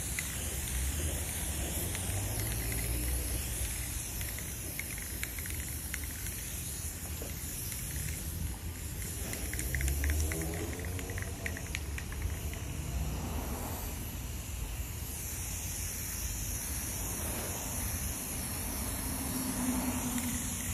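Aerosol spray can of black paint hissing as it sprays in long passes, a cheap can that has to be kept spraying to cover.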